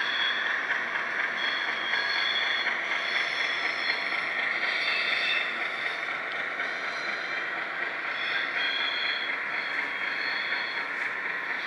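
HO-scale model train running across a trestle: a steady rolling hiss from the wheels and drive, with high-pitched squeals that come and go.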